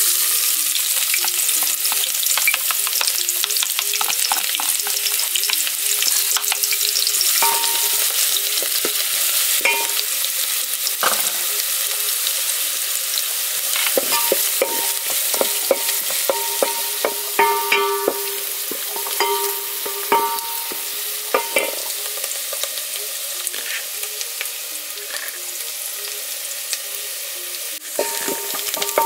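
Chopped onions hitting hot cooking oil in an aluminium saucepan and sizzling, with a wooden spoon stirring and knocking against the pan. The sizzle eases a little in the second half.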